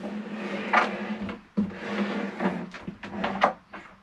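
Motorhome dinette table's extension leaf being slid and folded back into place: board rubbing and scraping, with several knocks.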